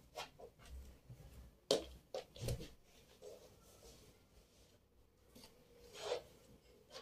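A few light knocks and rubbing handling sounds, the sharpest knock just under two seconds in, with more about half a second later and again near six seconds.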